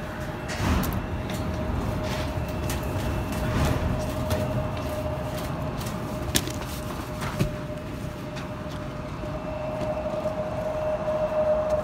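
Footsteps going down metal grating stairs and then onto packed snow, with scattered sharp knocks, over a steady mechanical whine that grows louder near the end.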